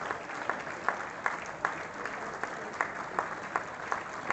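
Crowd applauding, with one close clapper's sharp claps standing out at an even pace of about two to three a second.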